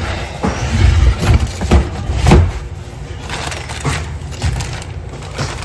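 Cardboard box being handled and shifted about: a run of knocks and scrapes with deep thumps in the first couple of seconds, the loudest a little past two seconds in, then a few lighter knocks.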